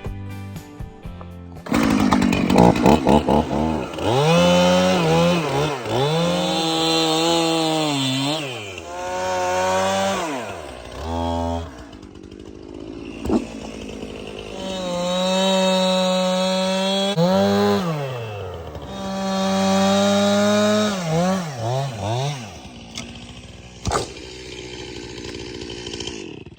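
Two-stroke chainsaw being revved hard and eased off again and again as it cuts into a tree, its pitch climbing and dropping in about five long swells with quieter idle stretches between. Music fades out about two seconds in.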